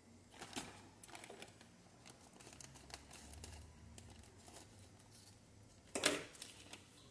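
Plastic bag of sour cassava starch crinkling as it is handled and snipped open with scissors, with a series of small crackles and clicks. About six seconds in comes a louder clatter as the scissors are set down on the stainless-steel counter.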